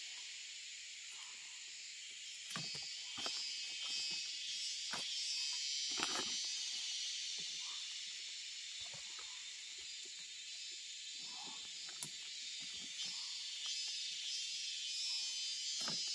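Steady, high-pitched insect chorus in forest, with a few sharp knocks scattered through it.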